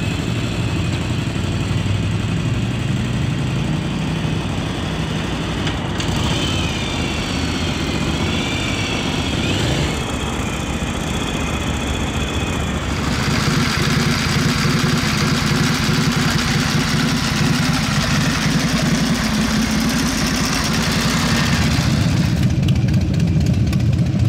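Motorcycle engines running at idle, a steady mechanical hum that grows fuller about halfway through.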